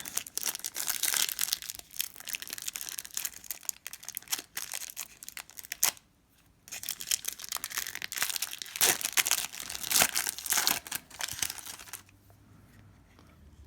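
Cellophane card-pack wrapper crinkling and trading cards rustling as they are handled, with a brief pause about six seconds in; it stops about twelve seconds in.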